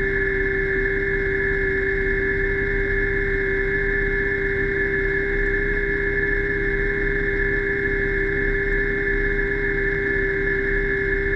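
Underwater diver propulsion vehicle (scooter) motor running at a steady speed, a constant whine in several pitches over a low rumble.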